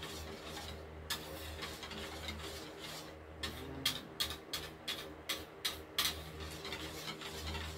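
Wire whisk beating a thin kutsinta batter in a plastic mixing bowl: a quick, irregular run of clicks as the wires strike the bowl, busiest through the middle, over a steady low hum.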